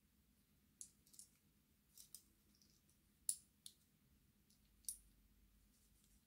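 Faint, irregular sharp clicks, about seven over a few seconds, of small metal parts and tools being handled while a bent part of a model locomotive's motor and gear assembly is worked back into position.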